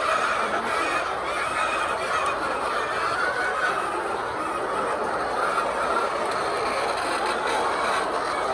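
A large flock of laying hens clucking and calling all at once, a steady dense chatter with no single call standing out.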